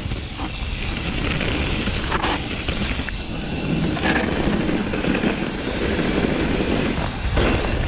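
Mountain bike descending a dirt trail: a steady rush of wind over the bike-mounted camera's microphone with the rumble of tyres on dirt, and a few sharp knocks from the bike over bumps.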